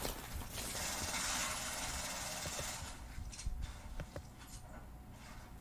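Rustling and handling noise close to a phone's microphone for the first few seconds, then quieter, with a few light clicks and taps.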